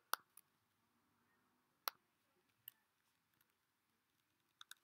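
Computer mouse clicking about six times in otherwise near silence: one click at the start with a faint one just after, one near two seconds, a fainter one a little later, and a quick double click near the end.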